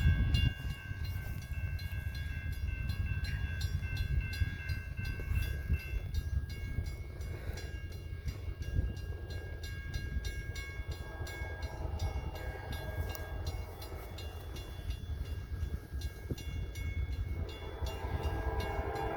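Freight train rolling past: a steady low rumble with a rapid, even run of wheel clicks over the rail. Thin steady high tones sound through the first half and fade out, and a chord of lower tones swells near the end.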